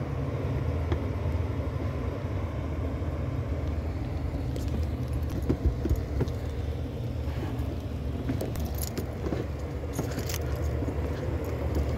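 A pickup truck's engine idling steadily, with a few short jingling clicks about five, nine and ten seconds in.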